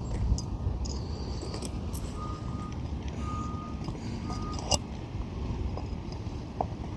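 A truck's reversing beeper sounds three times, about once a second, over a steady low engine rumble, with one sharp tap shortly after the beeps.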